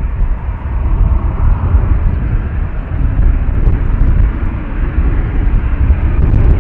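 Boeing 737-800's CFM56 jet engines at taxi idle, a steady distant hum, under a gusting low rumble of wind on the microphone.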